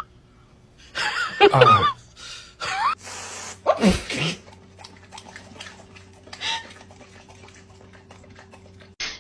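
A sneeze, a sharp burst about four seconds in, with a short voiced sound about a second earlier.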